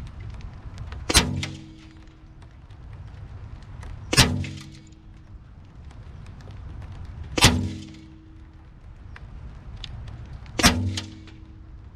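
FX Wildcat MK3 BT .22 PCP air rifle firing four shots about three seconds apart, each a sharp crack with a short low ringing tail.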